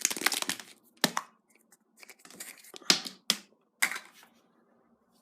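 A surprise egg's wrapper being torn and crinkled, followed by several sharp cracks and clicks as the egg is pulled open.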